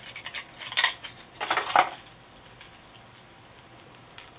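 A plastic lure package being handled and opened, with a few crinkling bursts in the first two seconds and clicks of the hard crankbait knocking inside it, then quieter fiddling and a sharp click near the end.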